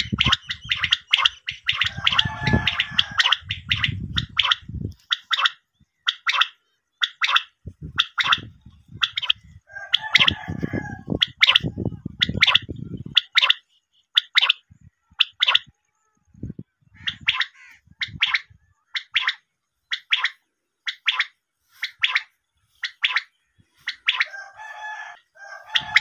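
Common quail calling: a long run of short, sharp, high notes, about two a second, with a low rumbling noise under the calls in the first half.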